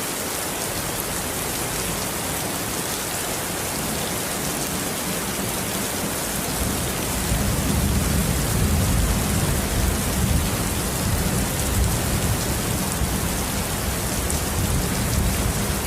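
Steady heavy rain falling, an even hiss. About halfway through, a low rumble of thunder swells in beneath it and keeps rolling.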